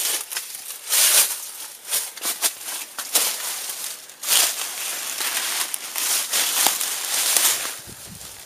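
Footsteps crunching and rustling through dry fallen leaves and loose rock in irregular bursts, fading near the end.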